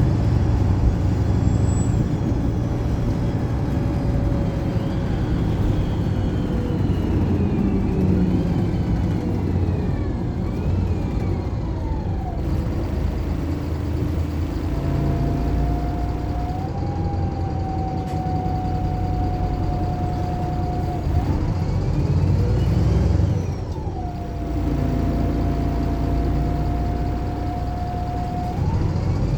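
Single-deck diesel bus driving, heard from on board. The engine drones underneath, with a drivetrain whine that sweeps down in pitch several times through the first half and then holds a steady high note. About two-thirds of the way in there is a brief dip as the pitch falls and climbs back.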